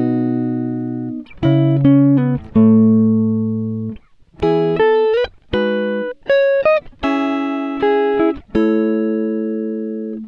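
Background music: a plucked string instrument playing a slow melody of single notes and short phrases, each note ringing and fading, a few bending slightly upward in pitch.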